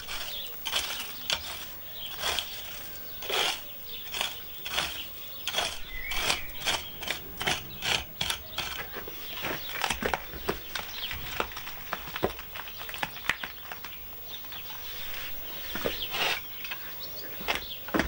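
A spade digging into stony, gravel-covered garden soil: a steady run of short scrapes and crunches, about one or two a second.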